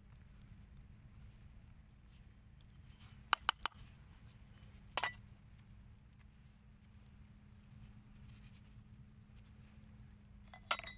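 Sharp clinks and knocks of crockery being handled: three quick ones a little over three seconds in, one with a short ring about five seconds in, and a couple near the end as a ceramic mug is set into a wicker basket beside a clay pot. A steady low hum runs underneath.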